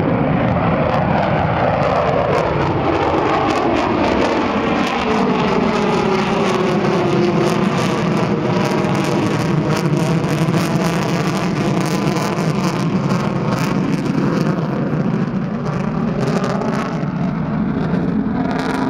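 B-1B Lancer bomber's four afterburning turbofan engines roaring as it passes at full power, the pitch sliding downward as it goes by, followed by a long stretch of crackling jet roar.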